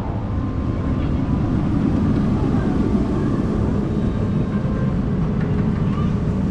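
Mandrill Mayhem steel roller coaster train running along its track, giving a steady low rumble.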